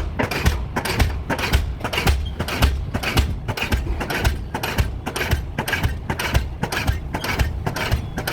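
Diesel pile hammer driving a pile: a steady, regular run of sharp blows, about two a second.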